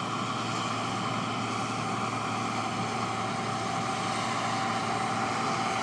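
Cotton stripper running while it harvests: a steady machine drone with a constant whine through it.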